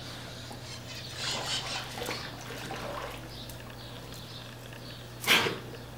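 Water sloshing and splashing as a black German Shepherd shifts about in a shallow pool, with one short, loud burst of sound about five seconds in, over a steady low hum.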